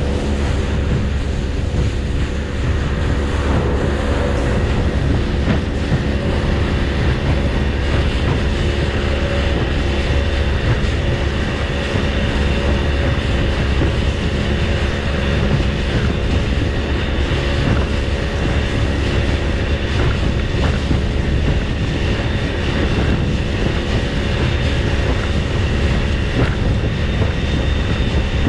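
Fishing boat's engine running steadily at cruising speed, with water rushing past the hull and faint knocks now and then.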